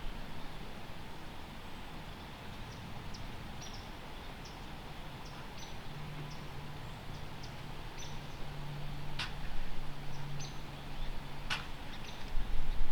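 Quiet woodland ambience with scattered faint high chirps, a low steady hum through the middle, and two sharp clicks about two seconds apart in the second half.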